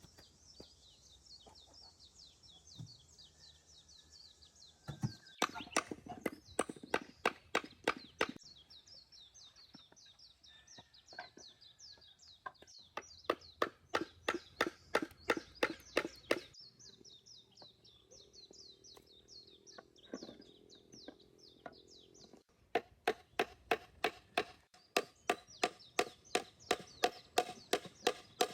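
Rapid, even knocking on wood, about four strikes a second, in three runs with pauses between, from hand carpentry work. Birds chirp steadily in the background.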